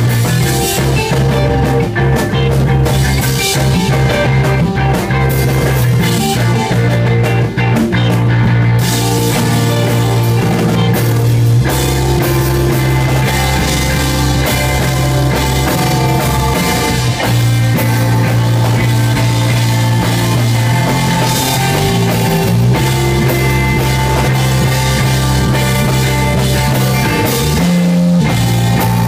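Rock band playing live, with guitar and drum kit over sustained low notes; the cymbals grow busier about nine seconds in.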